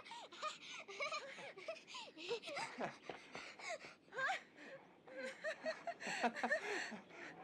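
A man and a woman laughing with relief and joy, in many short bursts.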